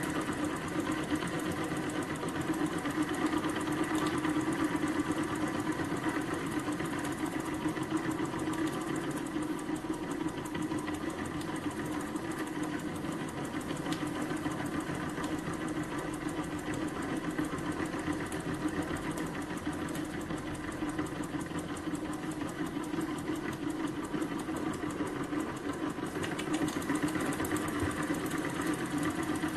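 Homemade single-cylinder oscillating (wobbler) steam engine running steadily on steam from a small boiler fired by a single burner, making a fast, even mechanical beat.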